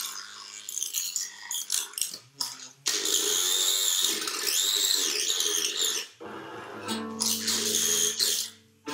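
Found objects being scraped and rubbed as improvised percussion: scattered clicks and scrapes, then a continuous wavering rasp from about three seconds in. About six seconds in, a steady low drone of several held pitches comes in under it.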